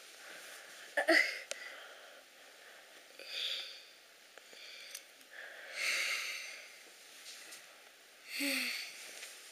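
A person hiccuping and breathing out hard, four short breathy bursts spread evenly, while trying to hold their breath to cure hiccups.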